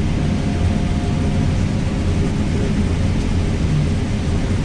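Heavy farm machinery running steadily during corn harvest: a constant low engine drone with a rushing noise over it.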